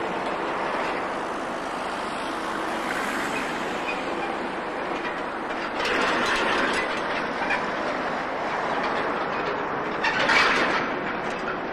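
Rail vehicle moving along track: steady rolling noise with a faint steady hum, and two louder bursts of noise about six and ten seconds in.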